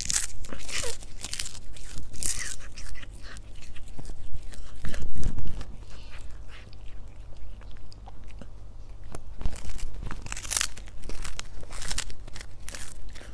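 A cat chewing and crunching a dried fish: irregular dry crackling bites in quick succession.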